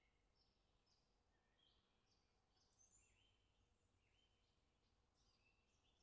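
Very faint chorus of small birds chirping: many short overlapping chirps and whistles, some sliding down in pitch.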